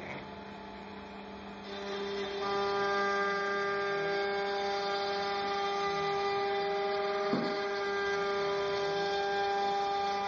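ShopBot CNC router with a 1/4 inch end mill cutting parts from a wooden sheet: a steady whine that gets louder about two seconds in as the cut gets under way, with one brief tick about seven seconds in.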